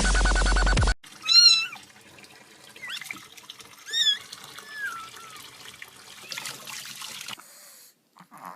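A cat meowing several times, short calls that bend in pitch, the loudest about a second and a half in and again about four seconds in. Dubstep music cuts off just before the first meow.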